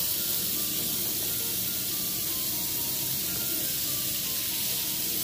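Newly installed kitchen faucet running full on into the sink: a steady hiss of water at strong pressure.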